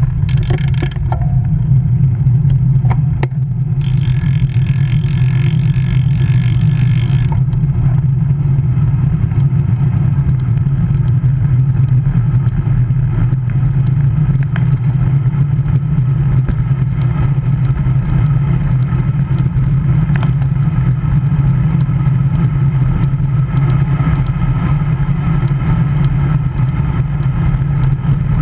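Steady wind buffeting and road rumble on a handlebar-mounted action camera on a road bike riding at speed. A brighter hiss joins for about three seconds, from roughly four seconds in.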